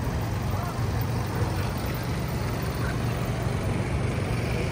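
Steady city street traffic: a constant low rumble of car, bus and truck engines with no single standout event.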